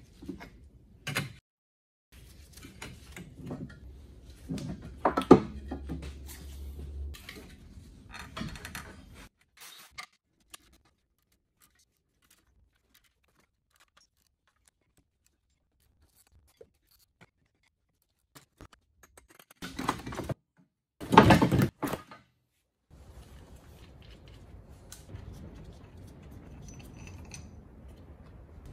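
Metal clinks, knocks and scrapes of a car's front wheel hub and driveshaft being handled and worked loose, in scattered bursts with a long near-silent gap in the middle and a louder burst of rapid knocks about three-quarters of the way through.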